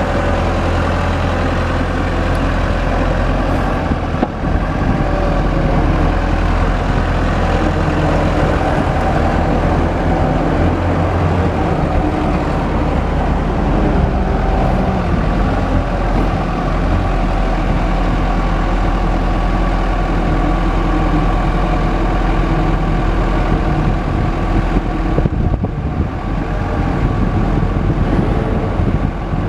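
Komatsu PW160 wheeled excavator's diesel engine running continuously, its pitch shifting up and down a few times as the machine works.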